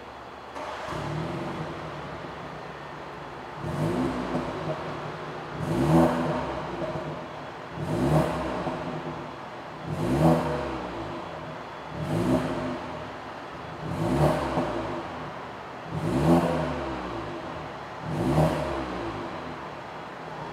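BMW 330i's B48 2.0-litre turbocharged four-cylinder, breathing through a catalytic downpipe and stock cat-back exhaust, starting up about half a second in and idling. From about four seconds in it is blipped eight times, about one rev every two seconds, each rising and falling back to idle.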